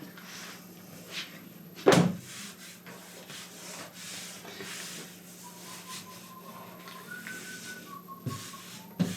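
Faint whistling of a few held notes stepping between pitches in the middle, over a low steady hum, with one sharp knock about two seconds in and a couple of softer knocks near the end.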